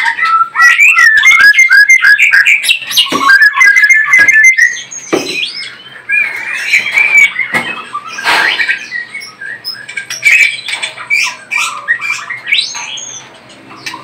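White-rumped shama calling: a fast run of repeated whistled notes for the first four or five seconds, then scattered, quieter calls and chatters with some sharp clicks.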